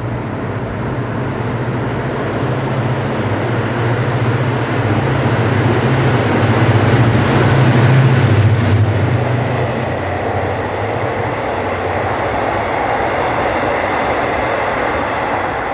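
A GE diesel-electric locomotive passing at full throttle, its engine drone swelling to its loudest about halfway through as it goes by. After that comes the steady rumble and clatter of passenger coaches rolling through.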